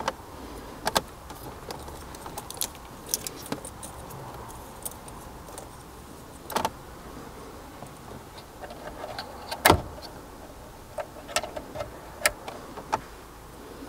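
Scattered small clicks and light plastic rattles as wiring connectors are plugged into the back of a car's infotainment head unit, with a few sharper snaps, the loudest just under ten seconds in.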